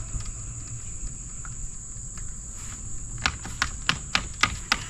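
Sharp clicks and light knocks from handling a kayak trolling motor's tiller extension handle and mount: a quick run of about seven clicks starting a little past halfway. Insects drone steadily and high-pitched underneath.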